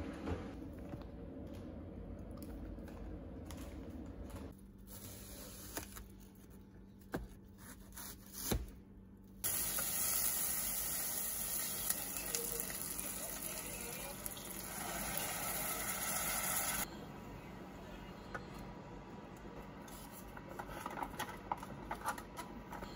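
Onions frying in a steel pot on an induction hob: a steady sizzling hiss starts abruptly about ten seconds in and stops just as abruptly some seven seconds later. Near the end, light knocks and clinks as cubed sweet potato and cauliflower are tipped from a plastic tub into the pot and stirred with a spoon.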